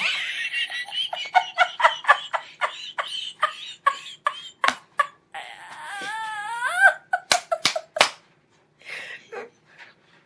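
A person laughing in rapid, high-pitched giggles, then a wavering squeal of laughter, with a few sharp clicks near the end.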